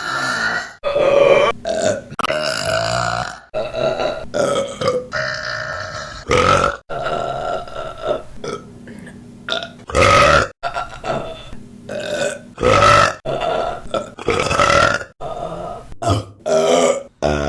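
A rapid string of women's burps from different recordings, about a dozen, each cut abruptly into the next. Some are short and some are long, drawn-out belches.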